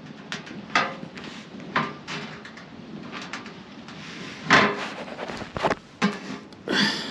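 Knocks and scraping as a mailbox is set onto its mounting and test-fitted: several separate clunks, the loudest about four and a half seconds in.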